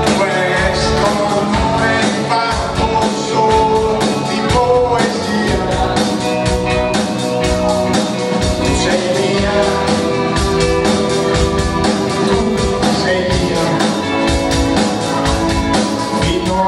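Live rock band playing a rock-and-roll song: electric guitar, keyboard and drum kit with a steady beat.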